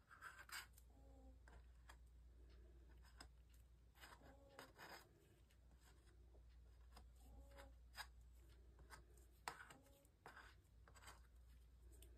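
Near silence with faint, irregular scraping: a thin stirring stick rubbing against a cup as the last of the epoxy resin is scraped out.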